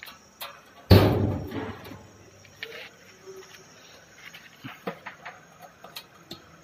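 Sheet-steel cabinet door shut with one loud metal bang about a second in, ringing briefly as it fades, followed by small scattered metallic clicks and jingles of keys and drawer locks being worked.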